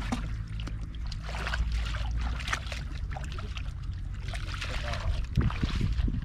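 Water splashing and sloshing in short irregular bursts as hands work through shallow rice-field water, over a steady low hum.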